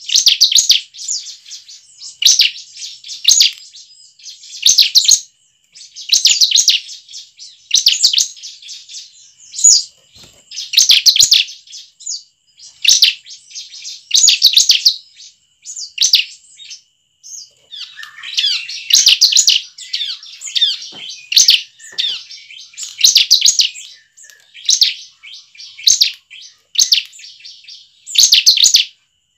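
Bar-winged prinia (ciblek) singing: short bursts of rapid, high chattering song about every one to two seconds, with a longer, busier run of song about two-thirds of the way through.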